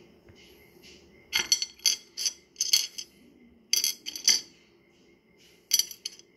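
Rough opal stones clicking and clattering against each other as a hand sorts through the wet pile, in three short clusters of sharp clicks.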